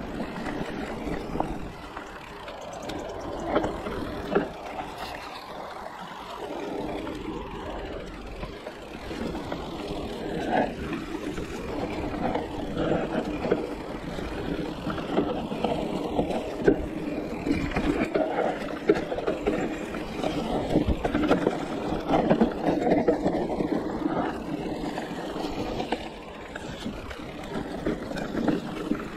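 Giant Reign E+ electric mountain bike ridden downhill over a steep trail: continuous tyre and riding noise with rattles and knocks from bumps throughout.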